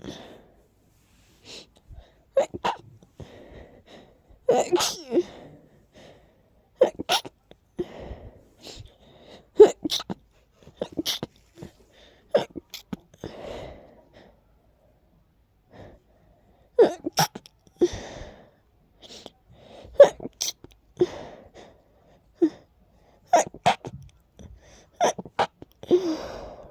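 A person's breathy, stifled sneezes, one after another in short sharp bursts with soft breathy intakes between, from allergies that the uploader says are acting up. There is a pause of a couple of seconds about halfway through, then the sneezes start again.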